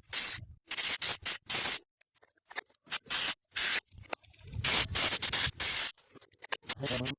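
Aerosol carburettor cleaner sprayed onto a small petrol engine's carburettor parts in a series of short hissing bursts, cleaning out deposits from the fuel system.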